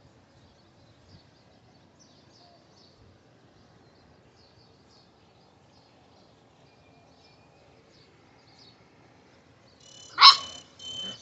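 A Vizsla puppy gives two short, high-pitched barks near the end, the first much louder than the second. Faint bird chirps sound in the background.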